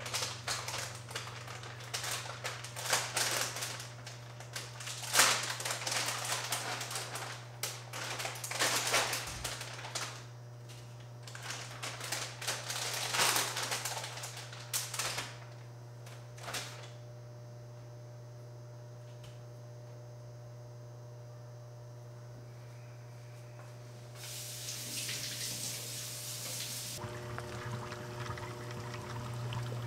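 Kitchen clatter at the sink: bowls and dishes knocking and clinking on the counter in irregular bursts, then quieter. A short rush of running tap water near the end, over a steady low hum.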